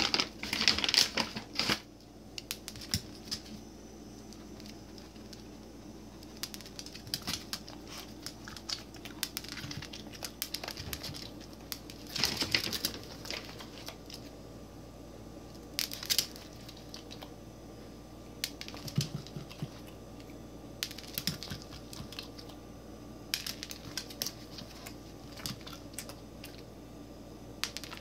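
Pug–chihuahua mix (chug) eating fast off the floor: quick crisp clicks and crunches in bursts, loudest in the first two seconds.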